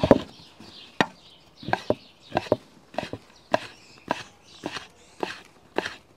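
Chef's knife chopping chorizo on a wooden cutting board, dicing the strips into cubes: a steady run of knife strikes, about two a second, the first one the loudest.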